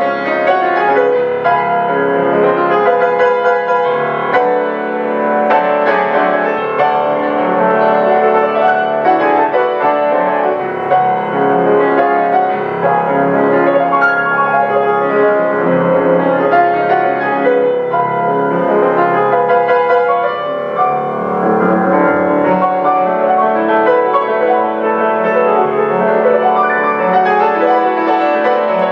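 Baldwin grand piano played solo, its notes following one another without a break.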